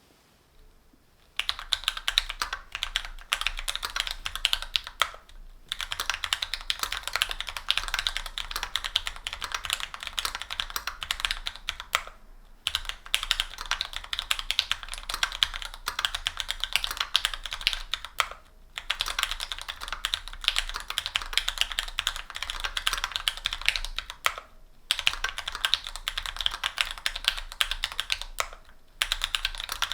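Continuous fast typing on a mechanical keyboard fitted with stock Gateron Pro Brown tactile 45g switches, an aluminium plate, GMK keycaps and foam dampening, a dense run of key clacks. Typing starts about a second and a half in and breaks off briefly every five or six seconds.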